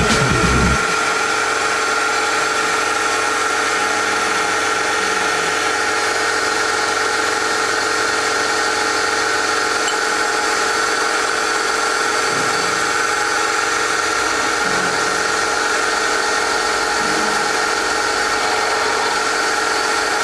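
Milling machine running steadily with a high whine, its end mill cutting a 3 mm valve relief pocket into the crown of a Honda CBR piston. A brief low rumble is heard in the first second.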